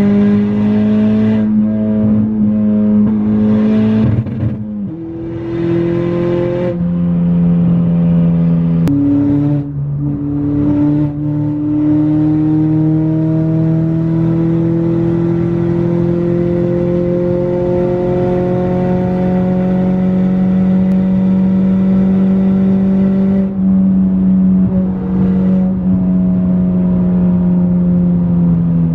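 Honda Accord's 1.5-litre turbocharged four-cylinder heard from inside the cabin, pulling hard at high revs. The engine note steps in pitch a few times in the first ten seconds, then climbs slowly for about thirteen seconds, steps down twice and falls away near the end.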